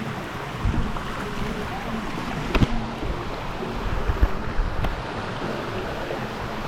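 Waterfall water rushing steadily, with a few short sharp knocks, the clearest about two and a half seconds in.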